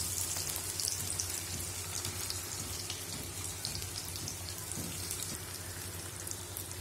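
Sliced onions frying in hot mustard oil in a kadai: a steady sizzle full of fine crackles that eases off slightly as the oil settles around them.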